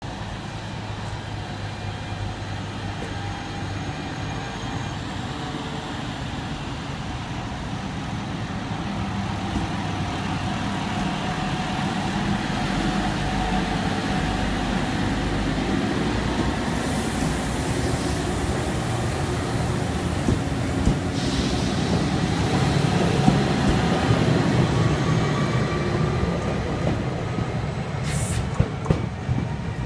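Alstom Régiolis regional multiple unit pulling out of the station: a steady low running hum growing louder, with a faint whine rising in pitch as it gathers speed. There is a burst of hiss about halfway through and a few sharp clicks near the end.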